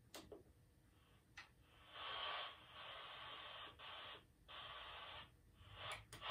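Small Fender guitar amp putting out static as a cable jack is handled and plugged in. A few sharp clicks are followed, about two seconds in, by a rushing hiss that cuts out and comes back several times, typical of a jack making and breaking contact.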